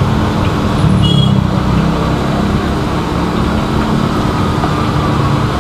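Deep-frying in a large aluminium wok over an LPG gas burner: a steady rumbling hiss of bubbling oil and burner flame as battered banana pieces cook. A brief high ring sounds about a second in.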